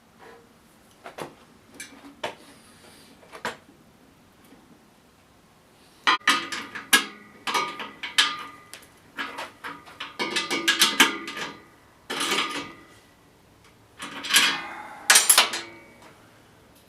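Metal clinking and clanking: steel parts of a lathe stand and a wrench knocking together while its bolts are adjusted. A few light clicks come first, then bursts of louder ringing clatter.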